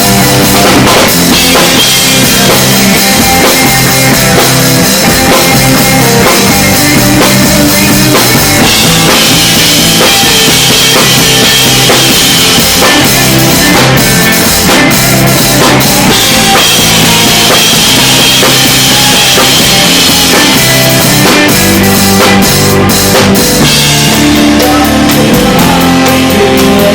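A rock band playing live, with the drum kit to the fore: bass drum, snare and cymbals over sustained pitched instruments. Cymbal hits come thick and fast near the end.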